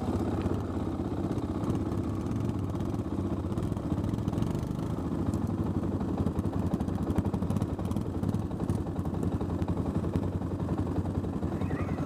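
Honda TRX350 FourTrax ATV's single-cylinder four-stroke engine running steadily close to the handlebar-mounted microphone.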